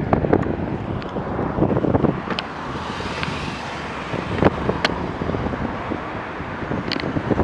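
Street traffic at an intersection, cars driving past, with wind rumbling on the microphone and a few scattered sharp clicks.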